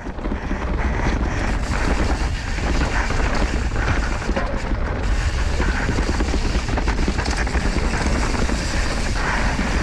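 Wind buffeting an action camera's microphone as a Pyga Hyrax enduro mountain bike descends fast on a rough dirt trail, with tyres rumbling on the dirt and constant rattling and knocks from the bike over the bumps.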